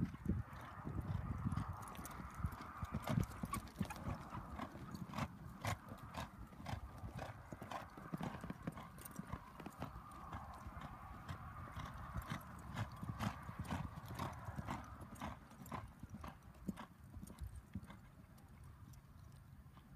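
Hoofbeats of a mare loping on loose sandy dirt: a running series of dull thuds and sharper strikes that grows fainter near the end.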